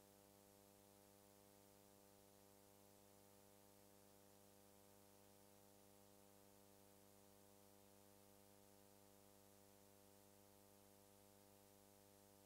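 Near silence: a faint, steady electrical hum with hiss and no sound from the scene itself.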